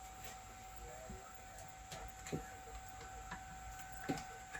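A few faint, separate clicks and light knocks, over a faint steady hum.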